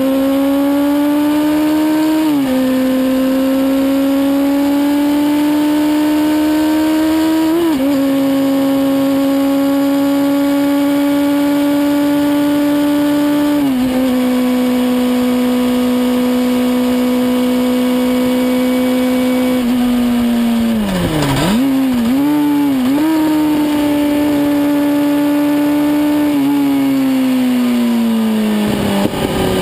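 Kawasaki ZX-6R inline-four engine pulling at high revs, its pitch climbing slowly with small breaks as the throttle is eased and reapplied. About two-thirds of the way through the revs drop sharply and jump back up in quick blips as it downshifts, then it pulls again and falls away near the end, over steady wind and tyre noise.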